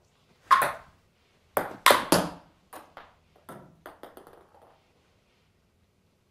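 Celluloid table-tennis ball clicking off paddle and table: a loud hit, then a quick run of three or four sharp knocks. The knocks then grow fainter and come quicker, like the ball bouncing away until it settles.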